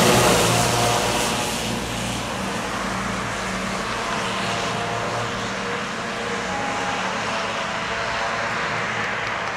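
A fire engine's diesel engine and tyres pass close by, loudest at the start, then fade to a steady drone as it drives away down the road.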